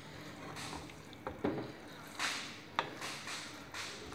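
Spatula stirring a thick gongura chicken curry in a nonstick pan: soft wet squelching with a few light taps and scrapes against the pan.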